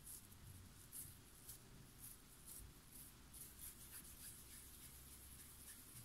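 Faint scratchy rubbing of hands pinching off and working pieces of crumbly butter-semolina dough in a glass bowl, in short repeated strokes.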